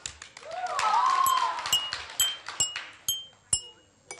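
Water-filled glasses struck with a pen, each tap ringing a short clear note of slightly different pitch, about two taps a second. Over the first two seconds or so a burst of clapping and voices rises over the taps.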